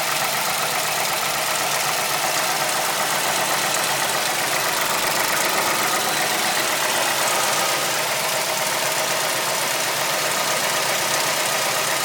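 Mazdaspeed3's turbocharged 2.3-litre four-cylinder engine running steadily with a knocking noise. The owner knows the timing chain is loose and hopes it is the cause, rather than rod knock, bent valves, injectors, lifters or cams.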